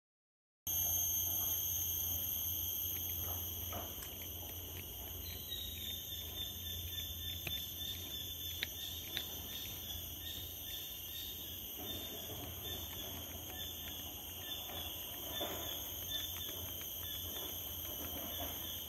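A steady, high-pitched insect chorus of several continuous droning tones, with a fast, evenly repeating chirp joining in about five seconds in and running most of the way through. A low steady hum lies underneath.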